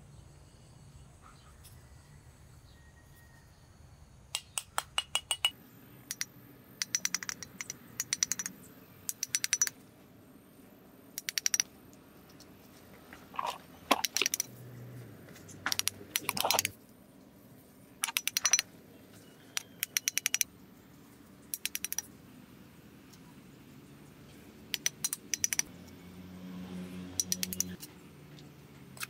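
Small steel trowel tapping and chopping tiny bricks, in quick clusters of sharp clicks every second or two, with a few scrapes of the blade on brick and mortar about halfway through.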